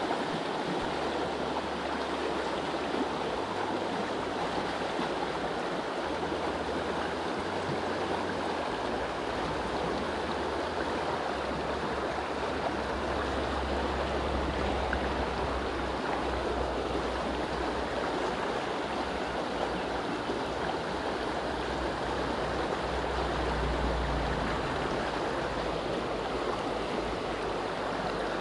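Steady rushing of a small mountain river's flowing water, with a low rumble that comes and goes underneath.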